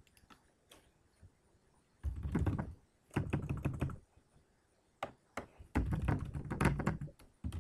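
Typing on a computer keyboard: quick runs of keystrokes in three main bursts about two, three and six seconds in, with a few single key clicks between them.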